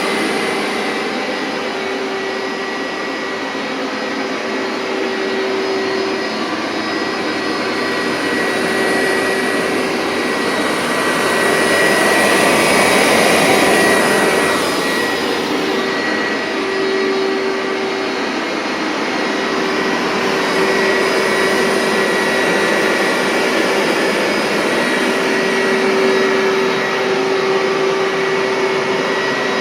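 Hoover SteamVac Widepath carpet cleaner running steadily, its motor giving a constant whine, with the level rising and falling gently.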